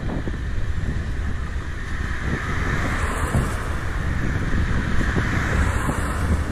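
Wind buffeting a GoPro's microphone while riding a bicycle, heard as a steady low rumble, with a hiss that swells in the middle.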